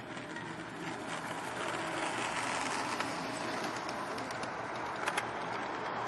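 G-gauge model freight train rolling past at track level: a steady rumble of wheels on the rails that grows louder as the train comes near, with a few sharp clicks from the wheels at the rail joints.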